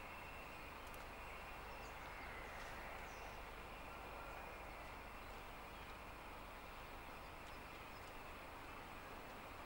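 Faint outdoor background: a steady hiss with a few faint, short bird chirps.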